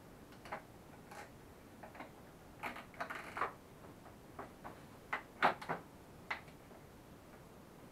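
Small irregular clicks and taps of hands handling the plastic headlight housing and front fender of a children's quad while the new headlight is fitted. A cluster comes about three seconds in, and the loudest click about five and a half seconds in.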